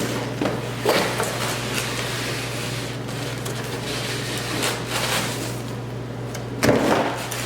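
A stud-welder dent-pulling kit's carrying case being handled and opened, with scattered knocks and rattles of the case and its parts and a louder clatter near the end. A steady low hum runs underneath.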